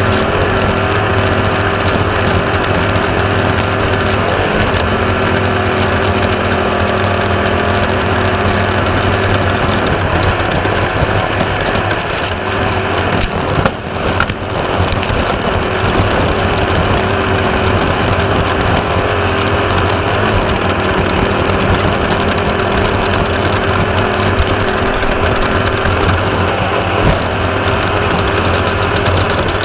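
Onboard sound of a Class 1/2-1600 off-road race car at racing speed: its air-cooled Volkswagen 1600 engine running hard under loud, steady noise from the chassis and terrain. A few sharp knocks come about halfway through.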